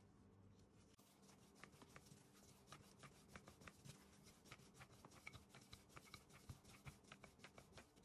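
Faint rubbing and irregular light ticks, several a second, from gloved hands handling and pressing out soft yeast dough on a floured wooden board.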